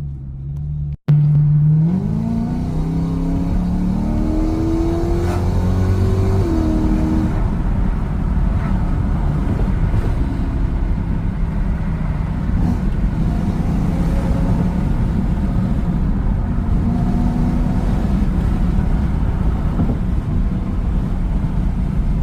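Car with a leaking exhaust, engine pulling away with a loud exhaust note that rises in pitch for a few seconds, then drops as it shifts gear and settles into a steady low drone while driving.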